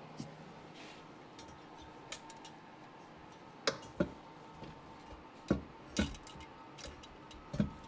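Scattered clicks and knocks of hard parts being handled and fitted as the exhaust pipe goes onto a Sea-Doo 951 DI engine, with a handful of louder sharp knocks in the second half.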